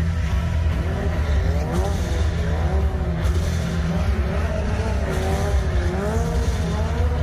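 Stunt car's tyres squealing in long wavering tones as it spins, over the car's steady low engine rumble.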